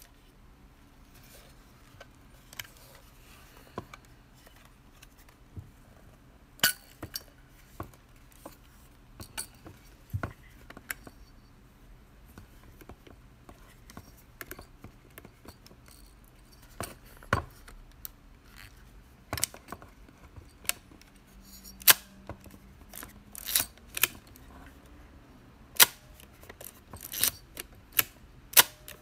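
A Nikon Nikomat film SLR being worked by hand: a run of sharp mechanical clicks from its metal-bladed focal-plane shutter firing and its film-advance lever being cocked. The clicks are sparse at first and come closer together in the second half.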